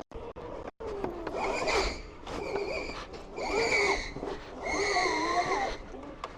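Worn scooter rear tyre squealing against the pavement in four bursts as it spins during a burnout attempt.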